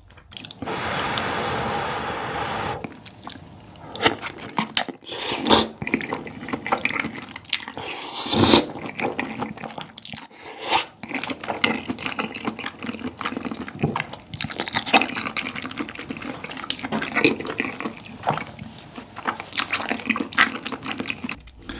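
Close-miked mukbang eating sounds: a drawn-out wet slurp of sauce-soaked glass noodles and tteokbokki for the first few seconds, then chewing of the chewy rice cakes with wet smacking, sticky clicks and short slurps.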